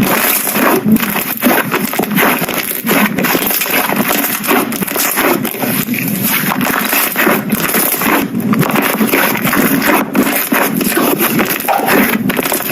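Slime being pressed and squished by hand, giving a dense, continuous crackling and squishing with many small pops.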